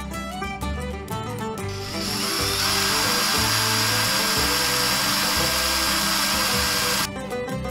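A power tool runs steadily for about five seconds over plucked-string background music. It comes in about two seconds in with a short rise in pitch, holds a steady whine over a rushing noise, and cuts off suddenly.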